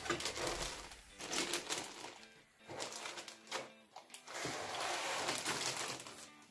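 Thin plastic bags crinkling and rustling in irregular bursts as sealed bags of plastic model-kit sprues are handled and lifted out of a cardboard box.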